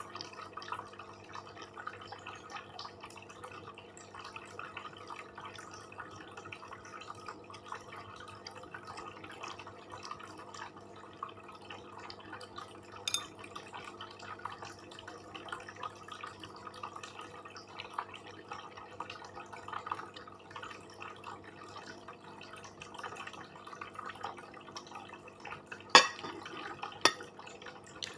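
Close-miked eating: wet chewing and lip smacking in many small, irregular clicks, with two sharp knocks about a second apart near the end.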